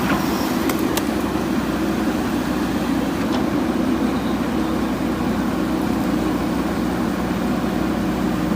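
Diesel engine of a JCB backhoe loader running steadily, with a couple of faint clicks about a second in.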